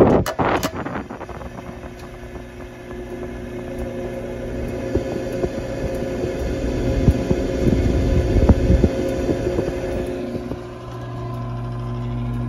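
Gas burner of an Intertherm mobile home furnace lighting off its new hot surface igniter with a sudden whoosh right at the start, then the flame burning with a rough, crackling rumble that grows louder. The new igniter is lighting the burner. About eleven seconds in, the rumble gives way to a steadier hum.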